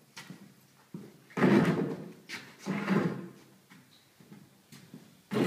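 A few heavy thuds and scuffs on a bare subfloor, from work-boot footsteps and a long wooden board being shoved along the floor with the foot.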